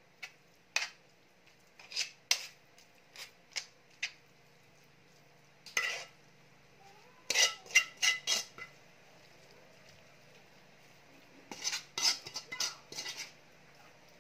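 Metal spoon and pan clinking and scraping against each other and a ceramic plate as spaghetti is served out: sharp clinks in scattered clusters with pauses between, busiest just past the middle and near the end.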